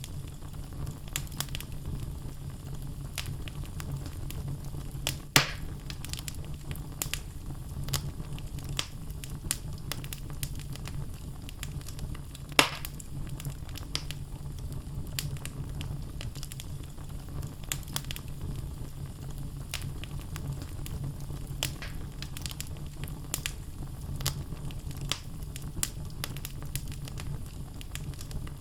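Wood fire burning in a fireplace: a steady low rumble of flames with frequent crackles from the logs, and two louder pops about five and twelve seconds in.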